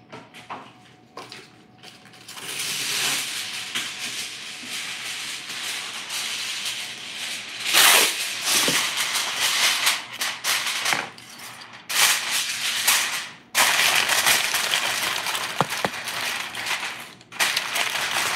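Aluminium foil being crinkled and pressed down over a baking dish: a loud crackling rustle that starts about two seconds in and goes on with a few short breaks.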